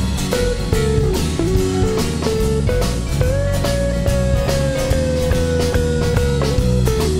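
Live gospel rock band playing an instrumental break: an electric lead guitar plays a melody, bending up into a long held note that slowly sags in pitch, over a drum kit and bass.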